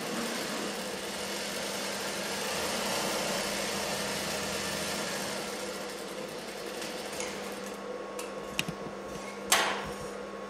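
Electric sewing machine stitching a second row along a blouse side seam, running steadily for about six seconds. It then goes quieter while its motor hum carries on, with a few light clicks and one sharp knock near the end.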